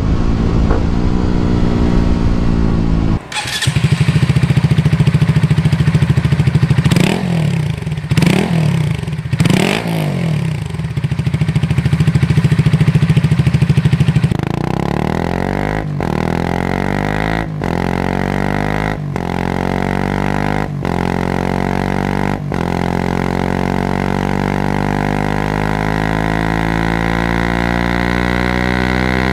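Exhaust notes of three single-cylinder 125cc motorcycles in turn. It opens with a Suzuki GSX-R125 on an unidentified aftermarket muffler. About three seconds in comes a Honda CB125R with a LeoVince muffler, baffle fitted, running steadily with three quick throttle blips. About halfway through comes a Suzuki GSX-R125 with a BEAMS CORSA EVO muffler, its revs climbing slowly, broken by several brief dropouts.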